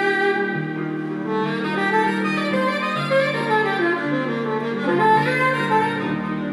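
Instrumental music: a saxophone playing a slow melody of held notes over sustained accompanying chords.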